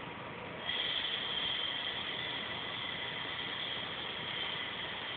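Compressed-air gun switched on about a second in and blowing steadily, a hiss with a high whistle, forcing air over fresh waterborne basecoat to dry it.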